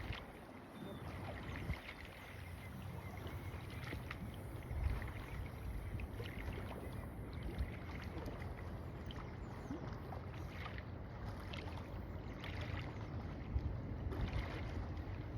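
Boat motor droning steadily with a low hum. A few brief knocks come now and then, the loudest about five seconds in and again near the end.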